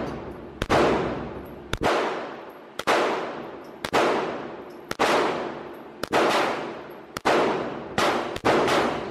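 Handgun fired at a steady pace, about one shot a second, eight shots in all. Each crack is followed by a long echoing decay in the indoor range.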